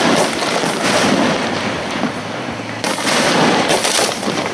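Hand-fired fireworks going off at close range: several sharp bangs over a continuous loud rushing, crackling noise, with a tall column of sparks launched near the end.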